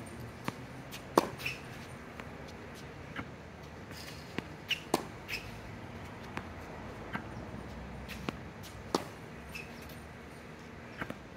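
Irregular sharp knocks of tennis balls being bounced and struck with a racket on a hard court, the loudest about a second in.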